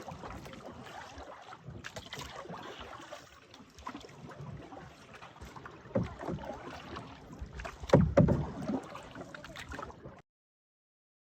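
Paddling a small boat on a lake: paddle strokes swishing and splashing in the water, with a few sharper knocks about six and eight seconds in. The sound cuts off suddenly near the end.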